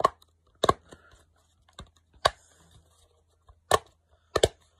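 Sharp plastic clicks of a planet dimple fidget toy as its pop-up bubbles are pressed: about six separate clicks at an uneven pace, two in quick succession near the end.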